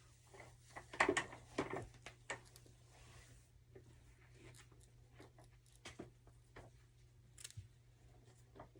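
Scissors snipping the lace of a lace-front wig: a few scattered, quiet snips and handling rustles.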